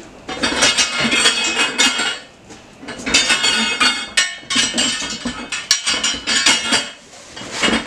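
Metal hose reel parts clanking and rattling as they are handled and lifted out, in three bouts of clatter of a second or two each.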